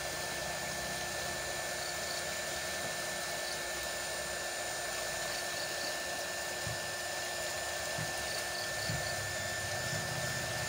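Small handheld craft heat gun (heat tool) running steadily, its fan blowing hot air: an even rushing noise with a faint steady whine. It is being used to shrink a plain plastic bag tight around a small box as a seal.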